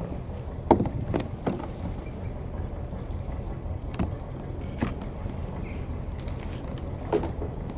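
Albin 2D inboard boat engine running steadily with a fast, even beat, and a few sharper knocks or clatters scattered through.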